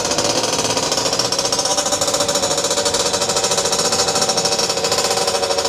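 50cc dirt bike's single-cylinder engine running at steady revs, its exhaust a rapid, even beat.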